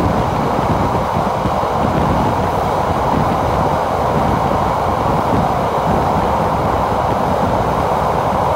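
Mutiara Selatan passenger train running through a tunnel: a steady, loud rumble of wheels on the rails, echoing off the tunnel walls.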